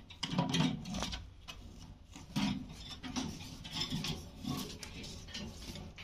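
Alexandrine parrot biting and chewing green capsicum with its beak: an irregular series of short crunching, rasping bites.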